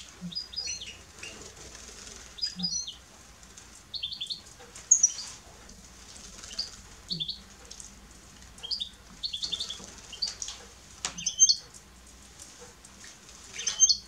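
European goldfinches giving short, high chirping calls, scattered every second or so, mixed with brief bursts of wing-fluttering and splashing as they bathe in a shallow metal water dish.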